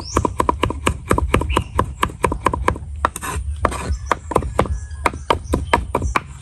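Cleaver rapidly chopping garlic on a round wooden chopping board: a fast, even run of sharp knocks, about six a second, with a short break about halfway.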